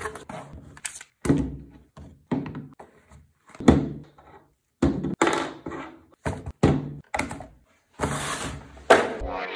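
Unboxing by hand: a cardboard box being opened and an airsoft gas-blowback pistol, its magazines and a weapon light being set down one after another on a hard table, a quick run of knocks and thunks. A longer rustle of cardboard and plastic wrapping comes near the end.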